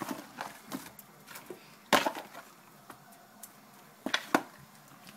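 Sharp knocks and clatter of a utensil against a cooking pot while the stew is mixed: several scattered hits, the loudest about two seconds in and a quick pair near the end.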